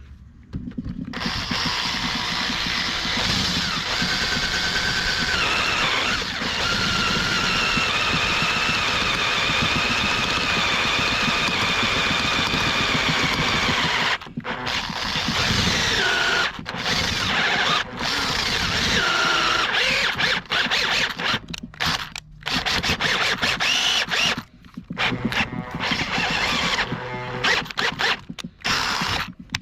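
Electric drill running under load, drilling out the stripped bolt hole in an alloy cylinder head with a Helicoil drill bit, with a whine that wavers in pitch. About halfway through it starts stopping and restarting in short runs.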